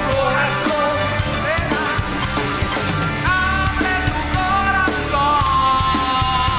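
A rock band playing a song: a lead melody with long bending, held notes over steady bass and drums.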